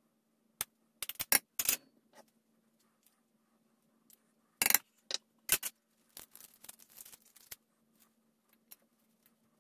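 Metal spoon clinking and scraping against small ceramic dishes as spices are scooped out and tapped into a mixing bowl: a string of sharp clicks, the loudest a little before halfway, then a light patter of small ticks.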